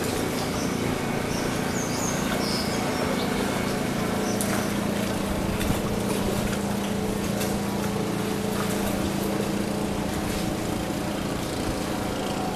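Motorboat engine running at a steady, unchanging pitch, with a few faint high chirps over it in the first few seconds.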